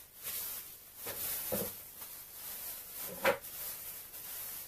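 Soft handling noise: faint rustling that comes and goes, with a short knock about one and a half seconds in and a sharper, louder knock a little over three seconds in.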